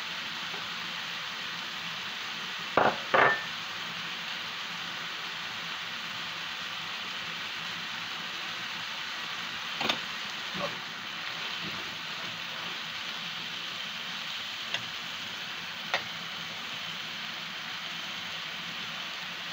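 Chopped onions, bell peppers and garlic sizzling steadily in oil in a frying pan as they cook down. A few sharp knocks on the pan cut through the sizzle; the loudest are two close together about three seconds in, the second with a short metallic ring.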